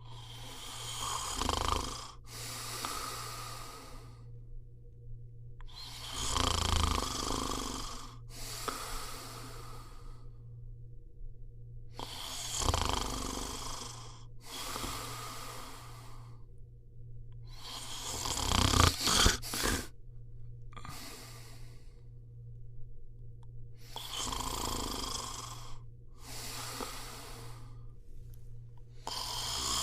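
A person snoring: each cycle is a snore on the in-breath followed straight away by a breathy out-breath, repeating about every six seconds, five times.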